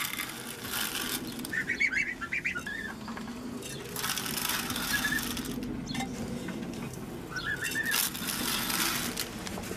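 Goslings peeping in short high chirps, in a cluster about a second and a half in, once briefly mid-way and again near the end, between three bouts of rustling in wood-shavings bedding.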